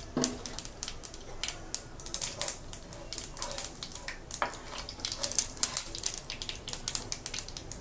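Panch phoron (five-seed spice mix) frying in hot oil in a frying pan: a dense, irregular crackle of small pops and clicks as the seeds sizzle.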